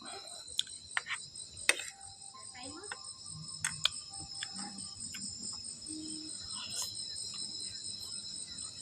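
A steady, high-pitched chorus of insects such as crickets shrilling without pause, with a few sharp clicks early on and at about four seconds.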